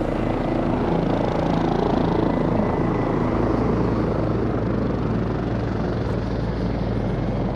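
Aircraft engines running: a steady, loud low drone with an even hum and no break.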